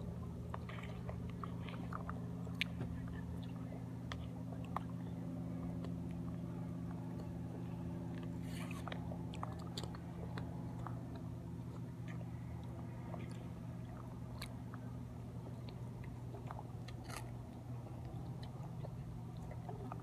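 Close-up eating sounds: a spoon clicking against a clear plastic sundae cup and mouth sounds of eating ice cream, in scattered short ticks. Under them runs a steady low hum.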